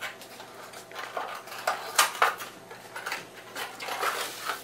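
Small cardboard candy box being opened by hand: irregular rustling, scraping and crinkling of the cardboard and the plastic wrapping inside, loudest about two seconds in.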